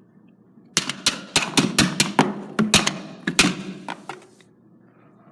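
A small plastic toy hairdryer being struck hard, about a dozen quick sharp hits in a little over three seconds, each with a brief ring. It is trying to smash the toy, which stays undamaged.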